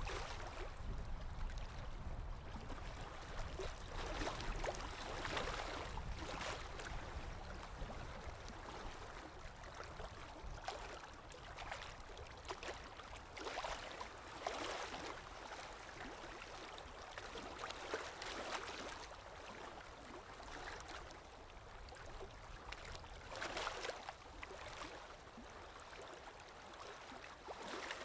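Stream water running and gurgling, rising and falling in irregular surges every second or two.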